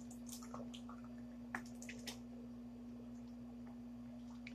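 Faint gulping and swallowing as a man drinks from a bottle, with soft clicks about one and a half and two seconds in, over a steady hum.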